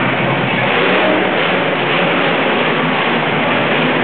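Monster truck's engine running and revving loudly as the truck drives across the dirt, a steady dense roar with no pause.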